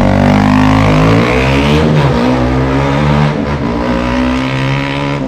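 KTM Duke 200's single-cylinder engine running through an aftermarket Akrapovic exhaust, revved so its pitch rises over the first two seconds, then held at a steady higher speed.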